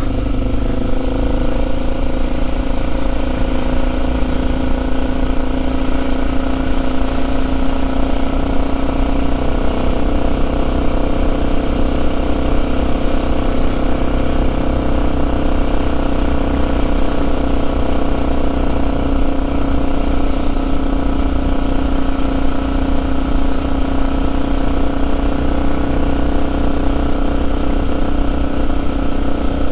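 Motorcycle engine running steadily at an even cruising speed on a dirt road, its note holding level.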